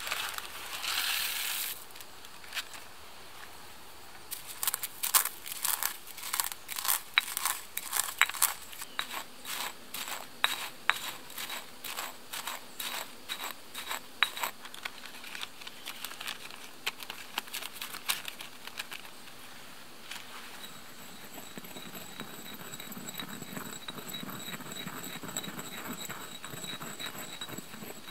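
A plastic zip-top bag crinkling as its dry contents are poured out, then a stone pestle working in a stone mortar: a run of quick sharp knocks and clicks, followed by steadier scraping and grinding.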